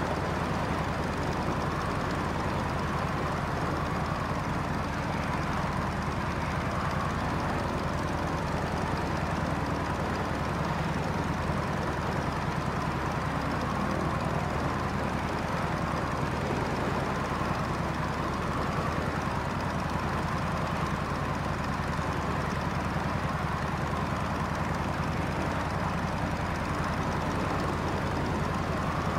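Light aircraft's piston engine and propeller droning steadily, with a faint wavering higher tone over it.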